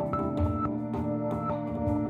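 Music: held instrumental notes over a steady percussive beat.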